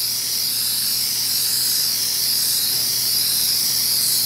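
Aerosol can of spray adhesive spraying in one long, steady high hiss.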